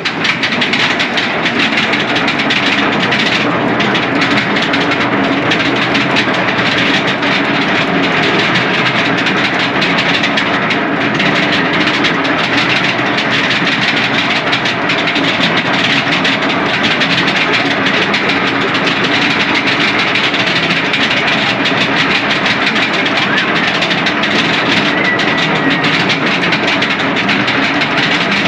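Roller coaster train on SheiKra's chain lift hill, a steady, loud mechanical clatter of the lift and train with dense, rapid ticking that does not let up.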